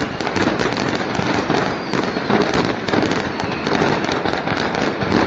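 A huge mass of fireworks going off at once: a dense, unbroken crackle of countless rapid pops and bangs.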